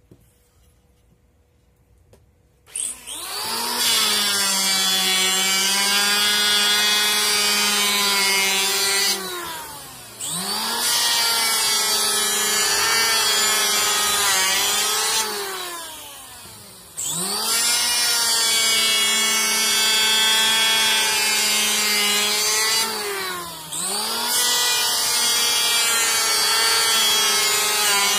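Electric hand planer switched on about three seconds in, its motor whining at speed as it shaves a wooden board. Three times the whine sags and falls away, then picks back up.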